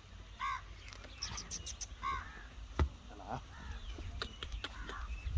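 Crows cawing: two short caws about a second and a half apart, with faint high chirps between them and a sharp knock about halfway through.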